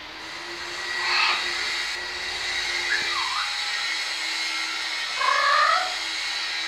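Blue-fronted Amazon parrot giving short calls: a brief call about a second in, a quick chirp that dips and rises near three seconds, and a louder, longer call about five seconds in. A steady hiss with a low hum runs underneath.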